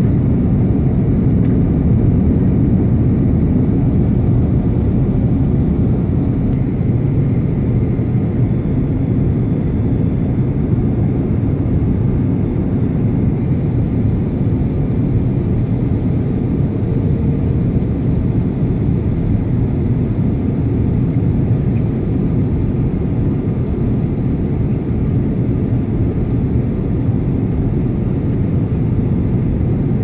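Steady cabin noise inside a passenger airliner in flight: engine and airflow noise, an even low rumble that doesn't change.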